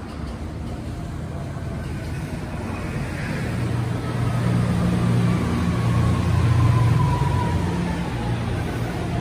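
Okinawa Urban Monorail 1000-series train arriving at a platform: its Hitachi IGBT VVVF inverter whine falls steadily in pitch as the train brakes, over a low rumble that is loudest as the cars pass, about six to seven seconds in.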